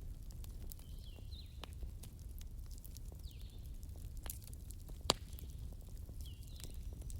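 Wood fire crackling with irregular sharp pops, the loudest about five seconds in, over a low steady rumble. A bird calls several times with short whistles, some sweeping down in pitch, others a quick two-note chirp.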